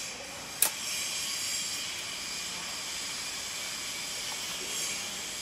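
One sharp metallic click from the latch of a metal electrical control box as its door is opened, over a steady background hiss.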